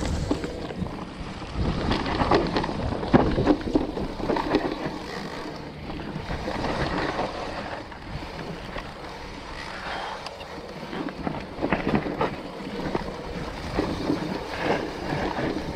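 Electric mountain bike descending a wet, rough trail: tyres on mud and roots, with frequent uneven knocks and rattles from the bike over the bumps, and wind buffeting the action camera's microphone.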